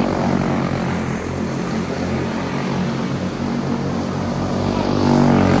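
A pack of racing karts with single-cylinder four-stroke Briggs & Stratton Animal engines running flat out around an oval. The engine note eases as the karts pull away across the track, then swells again near the end as they come back around.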